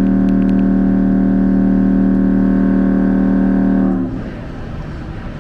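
A loud, steady, low horn-like tone, held unchanged for about four seconds and then stopping abruptly.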